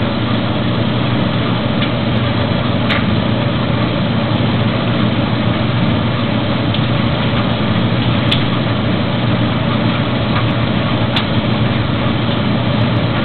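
Maytag DG608 gas dryer running with its burner lit: a steady mechanical hum, with a few faint ticks.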